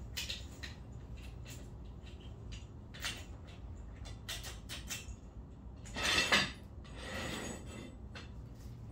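Geodes and stones clinking and knocking together as they are handled, a string of scattered short clicks with a louder scraping rattle about six seconds in.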